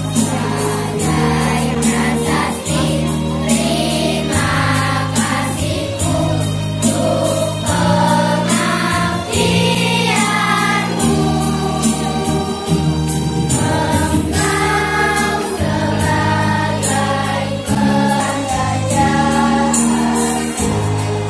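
A choir singing a song over music with held bass notes and a steady beat.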